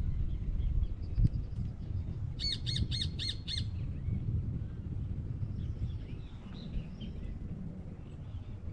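A bird giving a quick run of five harsh, evenly spaced calls, followed later by fainter chirping from birds, over a steady low rumble.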